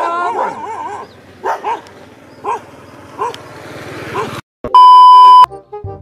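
Dogs barking: a rapid run of barks, then single barks spaced out about a second apart. Near the end, after a brief dropout, a loud steady electronic beep lasts just under a second.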